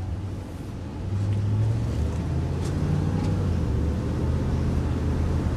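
Car engine and road noise heard from inside the cabin while driving, a steady low rumble that grows louder about a second in.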